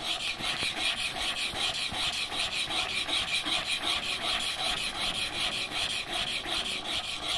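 Steel chisel bevel being rubbed back and forth on a wet 600 grit diamond sharpening plate, a gritty scraping hiss in quick, even strokes. This is the bevel being honed on the medium plate to raise a burr.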